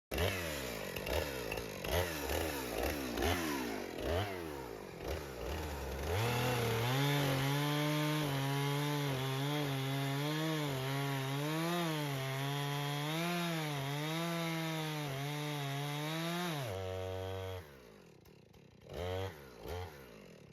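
Gasoline chainsaw revved in repeated short bursts, then held at high speed for about ten seconds with its pitch wavering as it works into the wood. It then drops to idle and goes quiet near the end.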